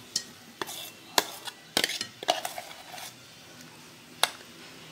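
Steel mixer-grinder jar and spoon knocking and scraping as coarsely ground chickpea paste is emptied into a steel bowl: scattered sharp metal-on-metal clinks and taps.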